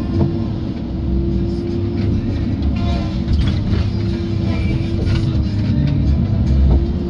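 Tigercat tracked feller buncher heard from inside its cab: the diesel engine running under load with a steady hydraulic whine as the boom and felling head move. The whine sags slightly and recovers, and short knocks and cracks come through now and then.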